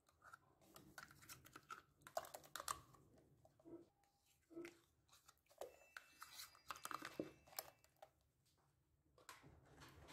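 A metal spoon scraping yogurt out of a thin plastic yogurt pot: faint, irregular scrapes and clicks of spoon on plastic, with crinkling of the pot.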